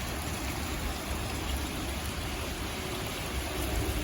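Heavy wind-driven rain pouring steadily, with gusting wind rumbling on the microphone.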